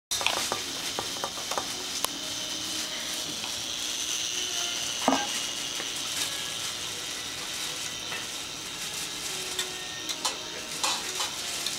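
Wire whisk stirring in a stainless steel pot, its wires clicking and scraping against the metal, over a steady sizzling hiss. There is a louder knock about five seconds in.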